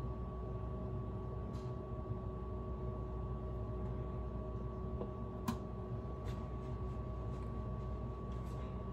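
Steady low hum with a few faint steady whine tones, and one sharp click a little past halfway through.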